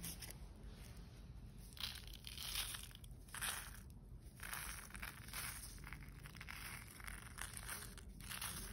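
Dry, flat, papery Easter lily seeds pouring out of a paper cup onto a flat surface, a soft rustling that comes in several uneven surges.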